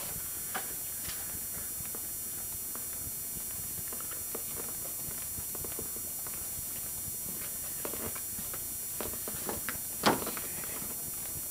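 Footsteps and scattered small knocks on a hard floor in an empty building, over a steady background hiss, with one louder knock about ten seconds in.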